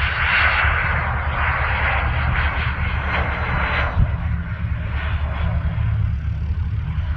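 Cessna Citation CJ4 business jet's twin turbofans running, a rushing jet noise that is strongest in the first few seconds and then eases, over a steady low rumble. A single sharp knock about four seconds in.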